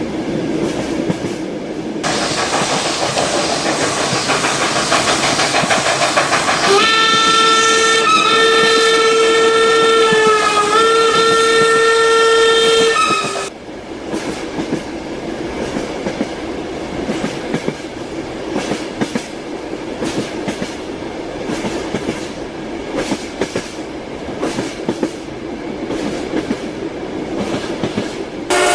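Train running on rails, its wheels clattering rhythmically over the rail joints. A louder rush builds about two seconds in, and a long horn blast sounds from about seven seconds in for some six seconds, briefly broken twice. The rush then cuts off suddenly, leaving the steady clickety-clack of the wheels.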